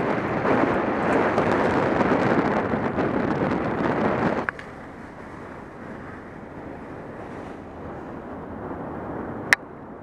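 Wind buffeting the microphone of a camera on a motorcycle at road speed, a loud steady rush that cuts off suddenly about four and a half seconds in. Then a much quieter steady background with one sharp click near the end.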